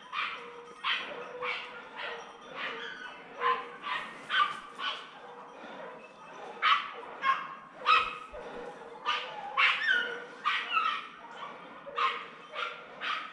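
Jagdterriers barking in a steady run of short, high yelping barks, about two a second, some nearer and louder than others: hunting terriers giving tongue on wild boar.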